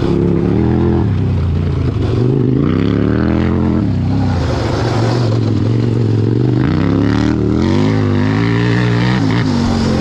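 Engine of a 100 HP Power Wheels 4x4 revving up and down as it is driven hard over a dirt track, its pitch rising and falling every second or two, over rough wind and riding noise.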